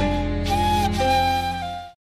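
Background music: a slow, flute-like melody moving between held notes over a steady low drone, fading out just before the end.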